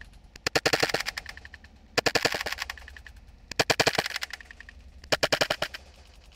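FN Five-seven CO2 blowback airsoft pistol firing: four short bursts of rapid sharp pops, about a second and a half apart.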